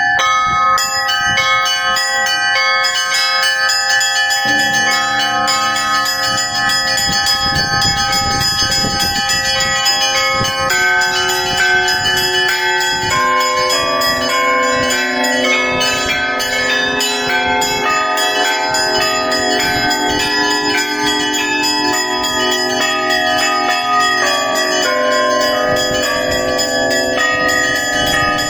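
Russian Orthodox church bells rung in a festive peal (zvon): small bells struck in quick patterns over the ringing of larger bells, with deeper bells joining about four seconds in.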